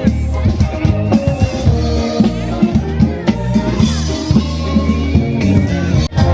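Music with a steady drum-kit beat and heavy bass.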